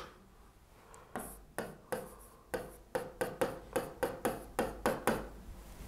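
Handwriting: a quick run of short scratching strokes, about three a second, starting about a second in.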